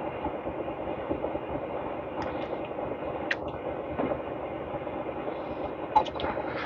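A steady mechanical hum with a few brief clicks and taps from small parts being handled.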